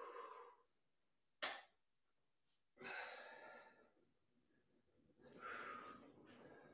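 Faint, heavy breathing: three breathy exhales a couple of seconds apart, from a person pressing dumbbells overhead. A short, sharp sound comes about one and a half seconds in.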